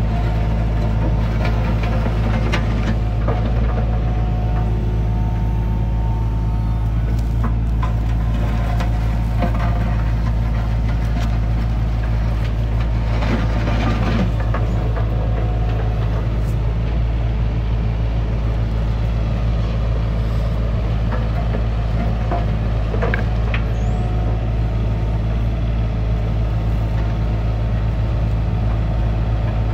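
Takeuchi TB325R mini excavator's diesel engine running steadily under hydraulic load as it digs, with scrapes and knocks from the bucket in soil and stones now and then.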